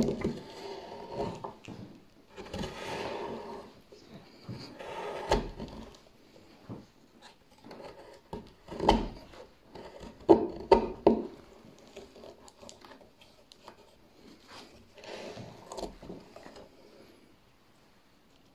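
Hand-forged swan neck gouge cutting a round hollow in a wooden board: dry scraping cuts in bursts as shavings curl up, with a few sharp knocks of the tool against the wood around the middle.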